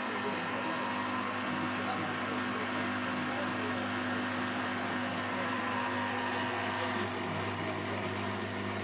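Beko WM74165W washing machine running on a 90°C quick wash, its motor and drum making a steady, even hum with a few faint ticks.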